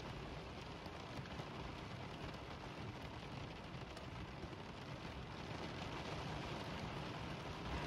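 Steady rain pattering on the van's windshield, heard from inside the van.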